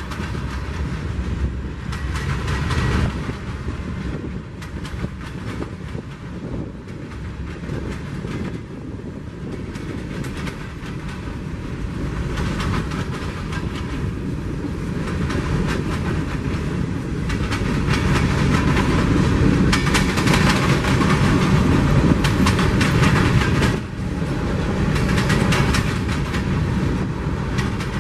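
Freight train of covered hoppers, boxcars and tank cars rolling past, the steel wheels clacking steadily over the rail joints. It grows louder through the second half, with a brief dip near the end.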